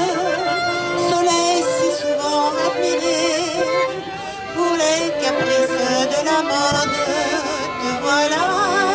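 A woman singing a song with strong vibrato over instrumental accompaniment.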